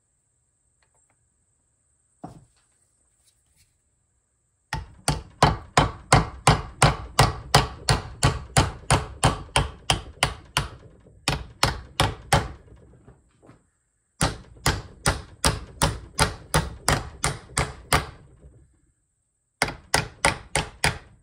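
Hammer blows on a seal driver, driving a new seal into a John Deere 3300 combine's water pump housing. A single knock comes first, then three runs of quick, even strikes at about three a second, with short pauses between them.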